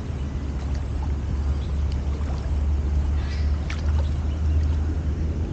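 Water sloshing as a horse wades chest-deep through floodwater, over a steady low rumble.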